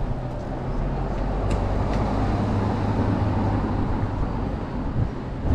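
Car driving along a city street, its engine a steady low hum, with two light clicks about a second and a half and two seconds in.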